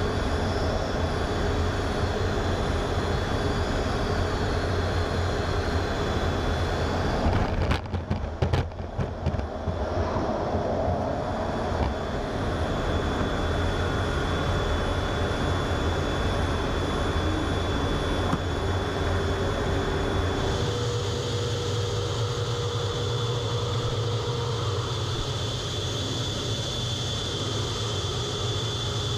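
A fighter jet's engines and airflow heard from inside the cockpit: a steady rumble and rush with a thin high whine. About eight seconds in come a couple of seconds of jolting knocks and lurching level, as the jet hits the carrier deck and is caught by the arresting wire. Later the cockpit sound shifts abruptly to a stronger, higher whine.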